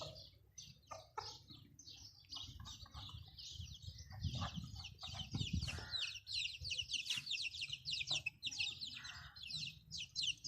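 Chickens clucking against a fast, high chirping of small birds, which grows denser and quicker in the second half.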